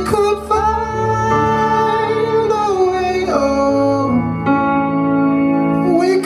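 Live rock band music with a male lead singer holding long, drawn-out notes, dropping to a lower note about halfway through.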